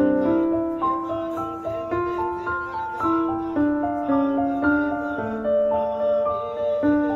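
Soft, slow piano background music, single notes and chords struck about every half second and left to ring.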